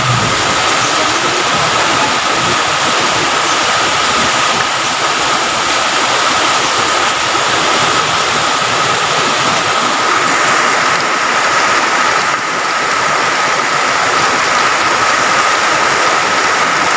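Heavy rain pouring in a steady, loud rush, with a thin steady tone held underneath.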